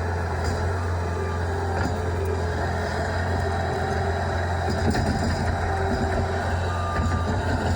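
Bobcat S76 skid steer's diesel engine running steadily with a constant low hum.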